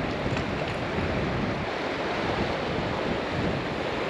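Steady rushing of the South Platte River's flowing water, with wind buffeting the microphone.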